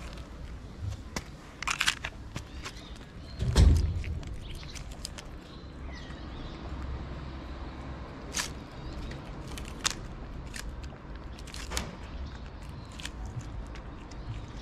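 A cat eating soft wet food, with scattered wet chewing clicks and smacks. A dull thump about three and a half seconds in is the loudest sound.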